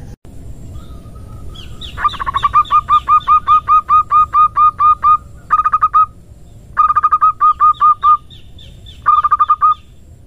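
Zebra dove (perkutut) calling in runs of short, quick repeated notes, about four or five a second: one long run of about three seconds, then three shorter runs.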